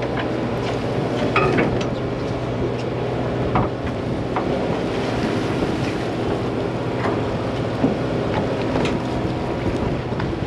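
Party boat's engine running steadily, with wind buffeting the microphone and a few faint knocks.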